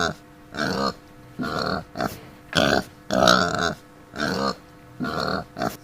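A pig grunting: about seven short, rough grunts, roughly one a second.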